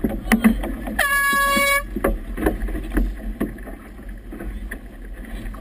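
A single short air-horn blast about a second in, lasting under a second: a race committee's sound signal. Throughout, wind buffets the microphone and choppy water splashes, with a few sharp knocks just before the horn.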